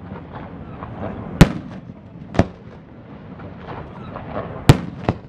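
Fireworks display: aerial shells bursting with sharp bangs. There are four bangs: one about a second and a half in, another a second later, and two close together near the end, the first of these as loud as the opening one. Steady background noise runs between them.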